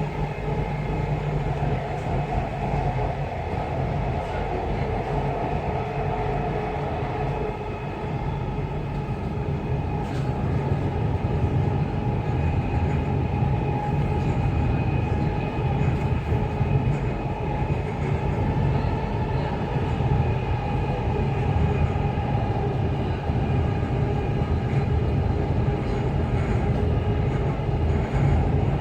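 Dubai Metro train running between stations: a steady rail rumble with a faint, even whine.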